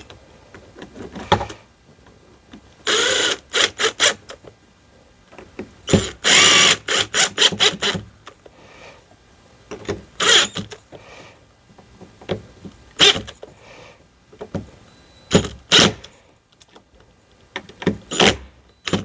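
Power screwdriver driving machine screws through a smart lock's faceplate. It runs in repeated short bursts, with one longer run about six seconds in, and small clicks of handling between bursts as the screws are snugged down.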